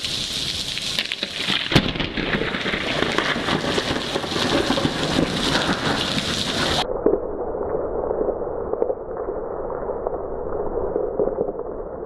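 Heavy rain falling, with a sharp crack of thunder about two seconds in and low rumbling after it. A little before seven seconds the sound cuts abruptly to a duller, muffled rain sound with the high end gone.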